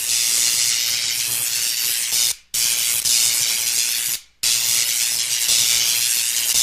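Electricity sound effect: a loud, steady buzzing hiss of electric current over a low hum, cutting out briefly twice, about two and a half seconds in and again a little after four seconds.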